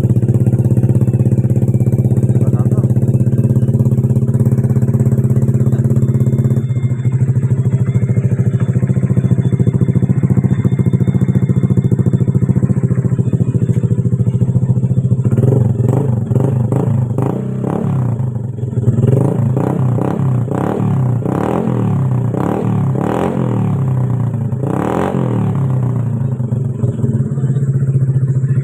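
Honda Click 150i scooter's single-cylinder four-stroke engine idling steadily. In the second half it is revved in a series of quick throttle blips, each rising and falling, then it settles back to idle near the end.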